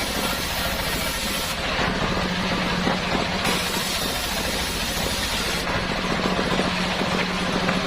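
Home-built circular saw rig running with a steady engine-like hum. A hiss above it grows and fades every couple of seconds.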